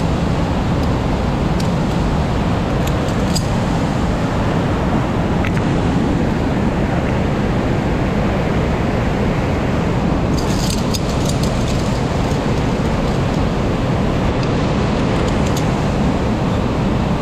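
Steady, loud rush of a mountain stream in a narrow gorge, with a few short clicks, clustered about ten seconds in.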